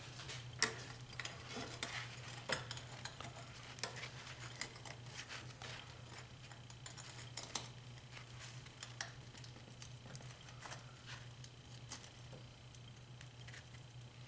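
Light metallic clicks and clinks as small steel parts are handled and set down on a steel diamond-plate work table, with a few sharper taps, over a steady low hum.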